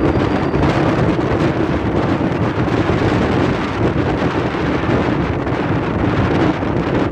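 Strong wind buffeting the camera microphone: a loud, steady rush of noise that starts abruptly as music cuts off.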